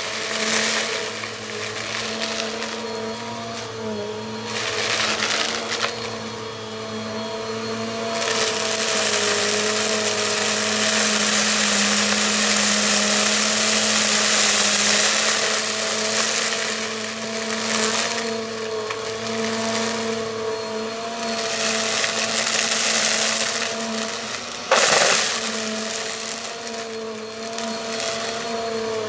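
Bissell vacuum cleaner running steadily, its motor whine holding a constant pitch while the rushing hiss of the airflow swells and fades. There is one sharp knock about 25 seconds in.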